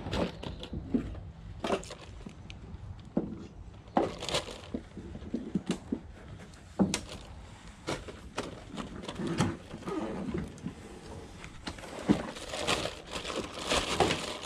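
Plastic carrier bag rustling and crinkling, with irregular knocks and clicks from hands and a fish being handled; the rustling thickens near the end.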